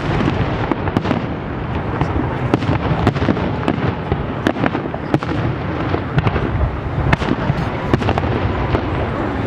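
Fireworks salute going off in a dense barrage: many overlapping sharp bangs and crackles over a steady low rumble, with no let-up.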